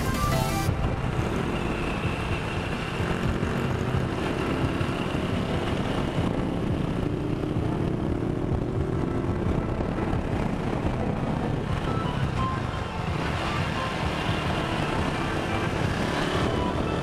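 A motorcycle riding along, its engine and wind noise a steady low rumble, under background music.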